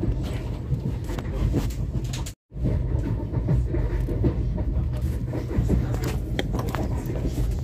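Moving passenger train's running noise: a steady low rumble of the carriage on the track, broken by a brief dropout to silence about two and a half seconds in.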